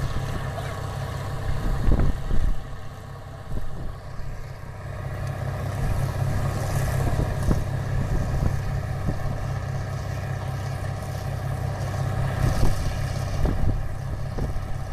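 Tractor engine running steadily with an even low pulse as it pulls a passenger wagon, heard from the wagon. There are a few sharp knocks about two seconds in.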